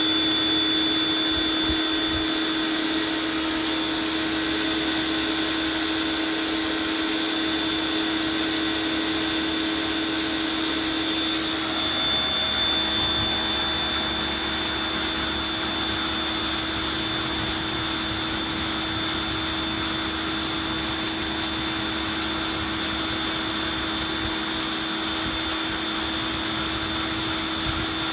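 HGTV Home 1750 PSI electric pressure washer running steadily, a constant motor hum and high whine over the hiss of the high-pressure spray on concrete, blasting at a wood-stain drip.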